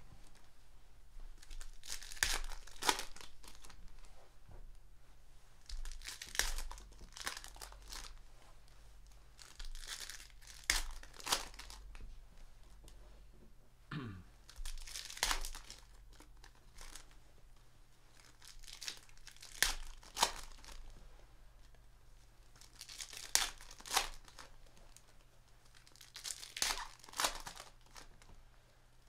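Foil-wrapped Panini Prizm retail trading card packs being torn open one after another, a short rip of the wrapper every three to four seconds.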